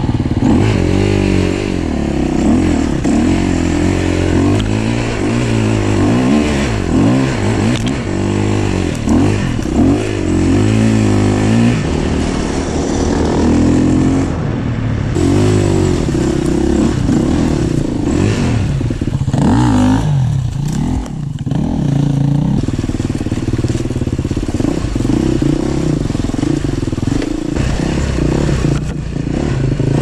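Dirt bike engine running under load on a trail ride, its revs rising and falling continually as the throttle is worked, easing off briefly about two-thirds of the way through.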